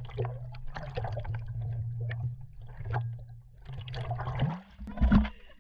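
Underwater microphone sound: bubbling, crackling water over a steady low hum. The hum rises and cuts out about four and a half seconds in, and a loud rush of water follows near the end.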